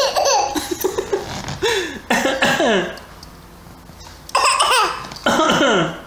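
A toddler's short cough-like sounds and laughs, about six in all, each falling in pitch, with short pauses between.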